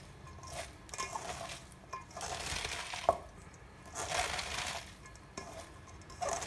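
Bare hands squeezing and kneading salted shredded cabbage in a stainless steel bowl: wet crunching and rustling in repeated swells, with one sharp click about three seconds in. The cabbage is being massaged firmly with salt to soften it.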